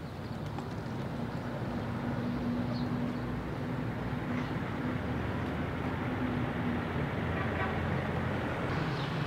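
Street traffic: a motor vehicle's engine running close by, growing gradually louder.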